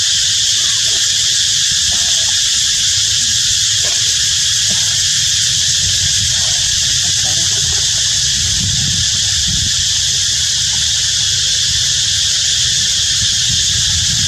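Steady high-pitched insect chorus with a low rumble of wind on the microphone that swells about two-thirds of the way through, and a few faint short calls from monkeys in the first half.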